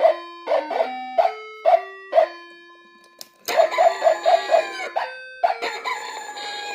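Novelty chicken alarm clock sounding its alarm: a simple electronic beeping tune of stepped tones interleaved with recorded chicken clucks about twice a second. It pauses briefly about three seconds in, then resumes with a quick run of clucking over the tune.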